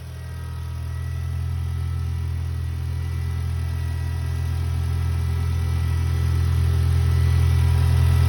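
Honda Civic EX engine running at a steady idle, coming on suddenly and growing slowly louder, just after a new throttle body was fitted to cure its high, unsteady idle.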